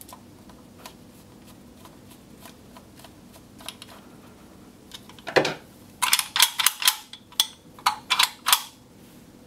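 Faint ticks, then a knock about five seconds in, followed by a run of about ten sharp metal clicks over nearly three seconds as the reassembled panic latch mechanism is handled and worked.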